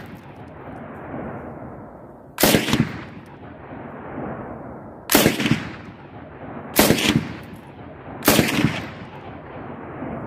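RPD belt-fed light machine gun (7.62×39 mm) with a shortened barrel fired in four short bursts of a few rounds each, a second or two apart. Each burst is followed by a long rolling echo.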